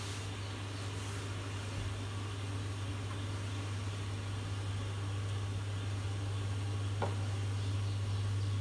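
Steady low electric hum of a glass-top electric cooktop heating a lidded pot of soup, with a faint hiss, and a single light tick about seven seconds in.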